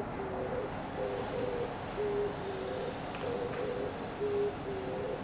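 Oriental turtle dove cooing: a low, hooting phrase of several notes, repeated about every two seconds.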